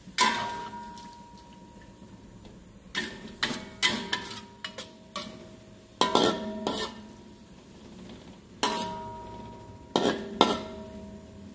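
Metal spatula knocking and scraping against a metal wok while stirring shredded chicken in broth, each strike leaving the wok ringing briefly. The strikes come irregularly: one at the start, a cluster from about three to five seconds in, more around six seconds, and a few more near nine and ten seconds.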